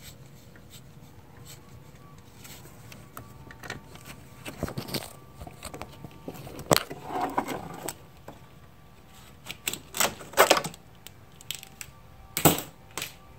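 A half-inch wrench working the nut on the battery-negative-to-engine-block cable: scattered sharp metallic clicks and clinks, several close together about ten seconds in.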